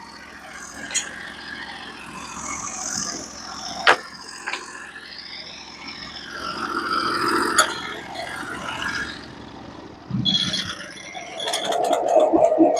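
Freshly sawn wooden boards and offcuts being handled on a sawmill: sliding and scraping, with a few sharp knocks of wood on wood or metal.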